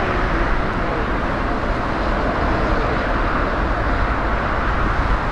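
Steady jet engine noise from a four-engine Airbus A380 rolling on the runway: a loud, even rumble with no breaks.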